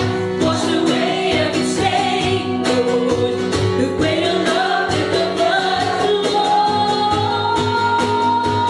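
A woman singing a worship song into a microphone over instrumental accompaniment with a steady beat.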